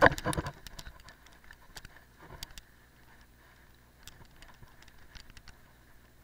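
Cyclocross bike clattering as it jolts over a bump on frosty grass: a loud rattle in the first half second, then quieter tyre noise with scattered clicks and rattles from the bike.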